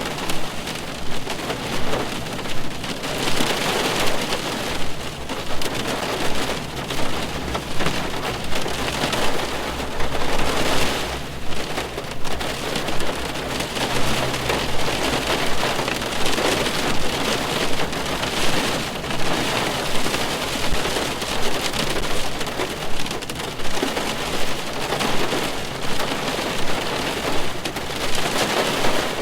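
Steady rain falling on a car's roof and glass, heard from inside the car: a dense patter of drops with a louder pulse about once a second.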